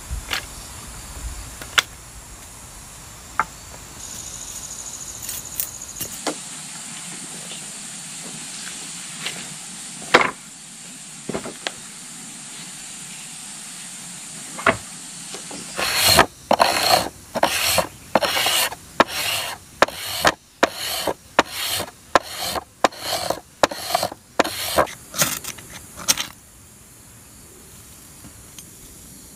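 Scattered light knocks and taps, then about halfway through a run of rhythmic rasping strokes, about two a second, that stops about ten seconds later.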